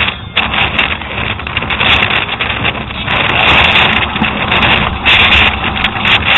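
Strong gusting wind buffeting the microphone of a downhill mountain bike rider's camera, mixed with the bike's tyres rolling over loose dirt and rock. The noise is loud and constantly rising and falling, with a heavy low rumble.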